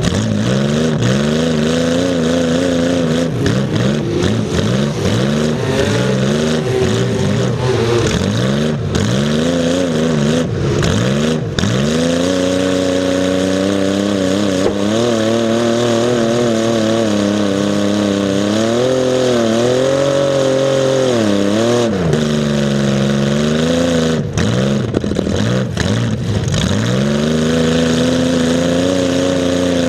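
Demolition derby car's engine running loud and close, revving up and falling back again and again as the throttle is worked.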